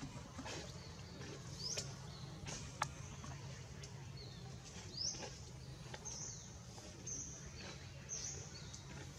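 Short high chirps and squeaks, repeated every second or so, over a steady low hum.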